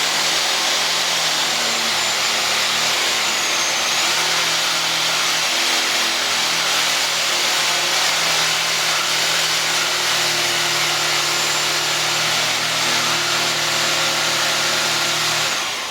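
Reciprocating saw (Sawzall) shaving wood in a continuous, loud run, its motor hum shifting a little in pitch, then shut off near the end.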